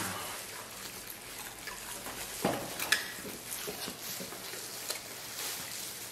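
Close-up eating sounds: chewing and mouth noises, with rustling of disposable plastic gloves while food is handled and peeled. A couple of sharper clicks come about two and a half to three seconds in.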